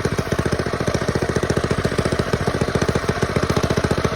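Rebuilt mini bike's small engine running steadily with an even, rapid firing beat; the rider finds it running well, with no carburetor or bolt issues.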